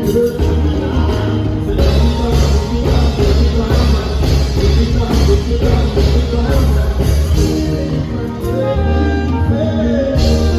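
Loud music played over a stage PA during a sound check, with heavy bass and a steady drum beat.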